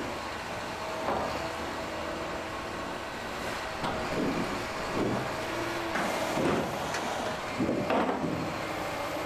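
Heavy machinery running with a steady drone and a held tone, with several louder clunks in the second half.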